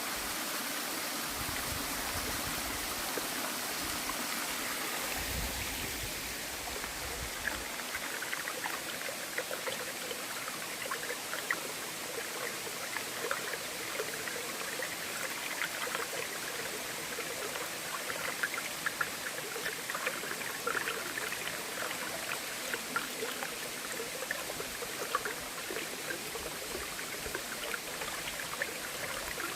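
Waterfall and its stream rushing steadily, with a quick patter of small close splashes and drips coming in about seven seconds in.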